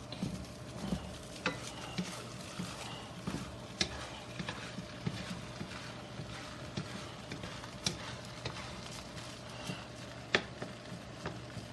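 A spatula stirring and scraping rice and mushrooms around a wok, with light sizzling and scattered clicks of the spatula against the pan, one sharper knock near the end.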